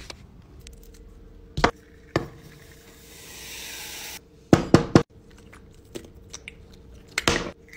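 Sharp taps and knocks of objects being handled on a hard tabletop, about seven in all, with three close together near the middle. A hiss rises for about a second and a half and then cuts off suddenly, over a faint steady hum.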